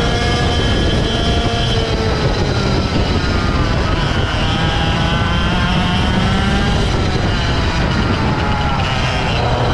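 Two-stroke racing kart engine at speed, heard onboard: the revs drop about two seconds in as the kart slows for a corner, climb again, dip once more around seven seconds and pick up again near the end.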